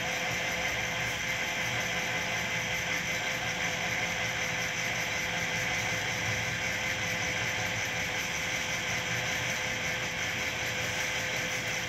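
Sheldon 12" x 36" belt-driven metal lathe running with no load, a steady mechanical whir with a constant tone over a low hum.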